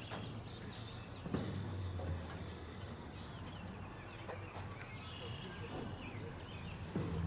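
Outdoor ambience: a steady low rumble, swelling briefly about one and a half seconds in and again near the end, with scattered faint bird chirps and a few soft knocks.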